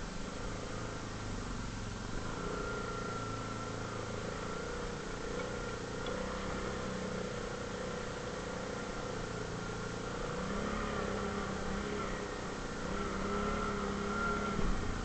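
ATV engine running steadily, its pitch stepping up a little about ten seconds in and again a few seconds later.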